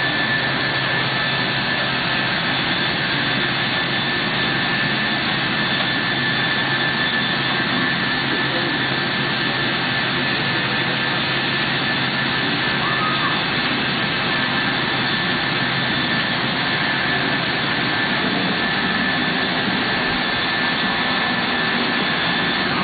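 Biesse Skipper 100 CNC boring machine running: steady machine noise with a constant high whine over a low hum.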